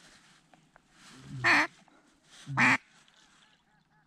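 Two loud, drawn-out mallard-style quacks, about a second apart.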